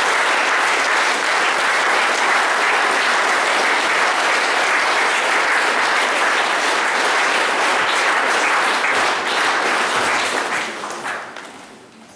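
Audience applauding steadily, dying away over the last two seconds.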